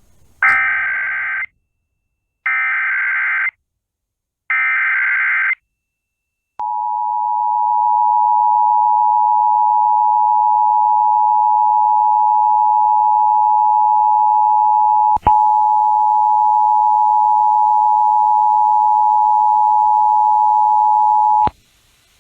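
Emergency Alert System tones on a radio broadcast. First come three separate bursts of SAME header data, each a harsh warbling screech about a second long. Then the two-tone attention signal, 853 and 960 Hz sounding together, holds steady for about fifteen seconds, with a brief click partway through, and cuts off near the end.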